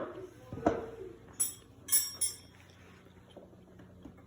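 A knock, then a few short bright metallic clinks of steel tools or parts being handled, then a faint low steady hum.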